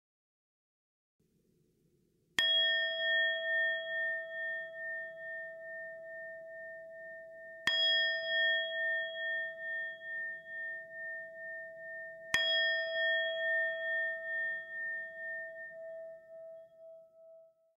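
A singing bowl struck three times, about five seconds apart. Each strike rings out in a long, wavering tone that slowly fades, marking a time of silent reflection.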